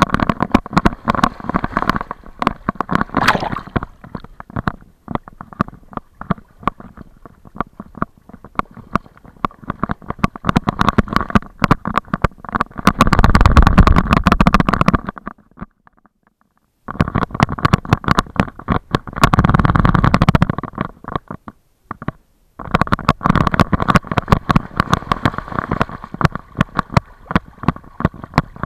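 Water splashing and sloshing right against a camera strapped to a swimming dog's back, with constant clicks and knocks from the harness mount. About 13 seconds in comes a louder burst of rattling and spray as the dog shakes off water.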